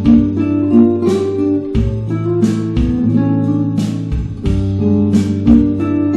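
Background music: acoustic guitar playing plucked and strummed chords over a bass line at a steady pace.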